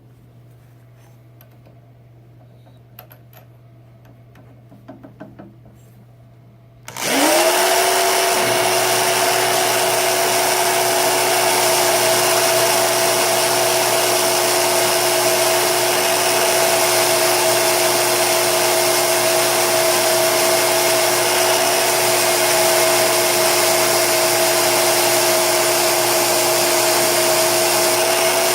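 Old electric drill mounted as a drill press, spinning a 40 mm diamond wheel: after a few seconds of low hum and faint clicks it starts with a quick rising whine, then runs steadily at one pitch as the wheel grinds a carbide stump grinder tooth. This is a light-pressure finishing pass.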